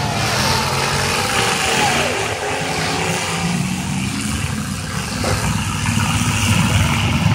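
Engines of several full-size demolition derby cars running and revving on a dirt track, their pitch rising and falling.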